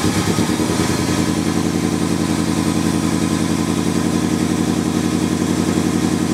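Subaru Legacy rally car's boxer engine idling just after starting, a little uneven for about the first second and then running steadily.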